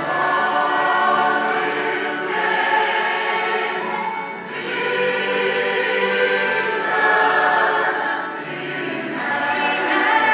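Church worship choir singing a Christian choral song together with a soloist on a handheld microphone.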